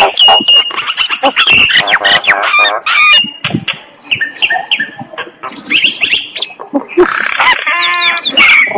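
Common myna singing: a busy, varied run of whistles, quick rising and falling notes and sharp clicks, with a fast rattling call near the end.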